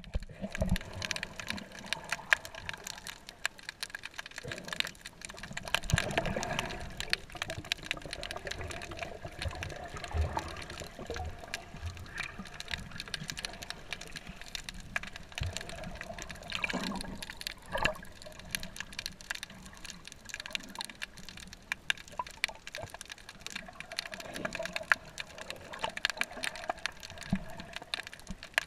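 Underwater ambience picked up by a submerged camera: water moving and gurgling, dense with sharp crackling clicks.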